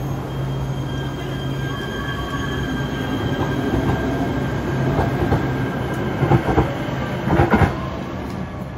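Kinkisharyo P3010 light-rail train accelerating out of the station: a steady electric motor hum and whine that builds. Its wheels clack sharply over rail joints several times in the last few seconds, then the sound falls away.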